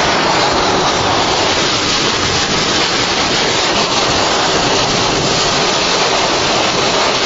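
Loud, steady rushing roar of tornado wind, unbroken throughout.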